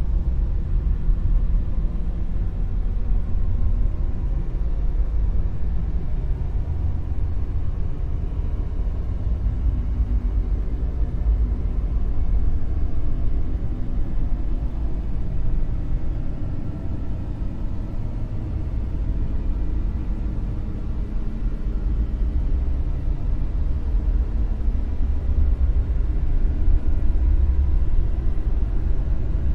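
Dark (deep, low-pitched) noise: a continuous rumbling hiss with its weight in the low bass, easing a little in the middle and swelling again toward the end.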